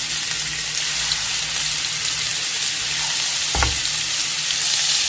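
Kebabs sizzling as they shallow-fry in a little hot oil in a pan. There is one short knock about three and a half seconds in.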